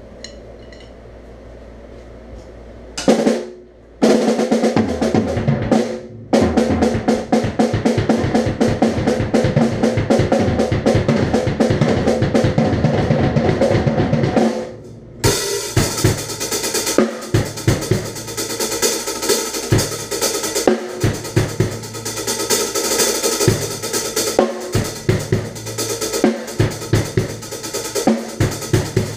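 Acoustic drum kit played with Los Cabos wooden drumsticks. After a quiet start, rapid close-spaced strokes begin about four seconds in, and from about fifteen seconds a full kit beat with cymbals and bass drum takes over.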